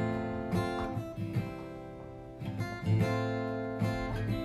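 Background music: acoustic guitar strumming chords, the instrumental lead-in to a song.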